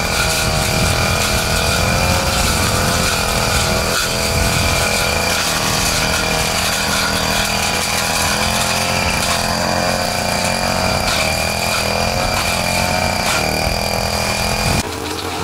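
Small engine of lawn-care equipment running steadily at high speed, with a steady high-pitched whine over the engine note. The sound drops suddenly near the end.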